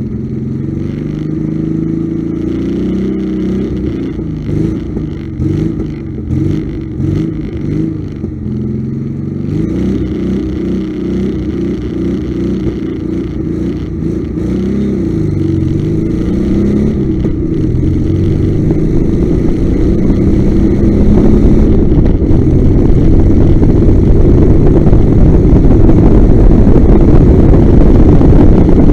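MR Type-LM1930 car's engine revving at a standstill, its pitch rising and falling with repeated throttle blips. It then pulls away under hard acceleration, growing steadily louder, with wind noise on the microphone building near the end.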